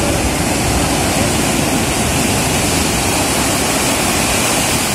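Rough sea surf breaking on a beach: a loud, steady rush of waves.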